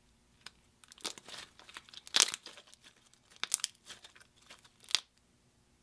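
Clear slime being stretched, folded and squeezed between fingers, giving a run of sticky crackles and pops that starts about a second in and stops just before the end.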